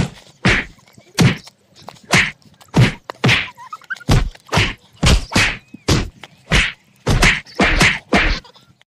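Fight hits: a quick, uneven run of about fifteen punch and kick thwacks, roughly two a second, each short and sharp with a deep low end.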